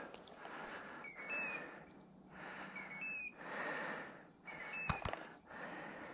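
A person breathing heavily close to the microphone, with a short rising whistle at the start of each breath, about every second and a half to two seconds. A sharp click comes about five seconds in.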